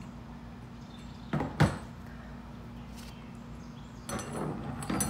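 Two sharp knocks about a second and a half in, then a few fainter knocks near the end, over a steady low hum.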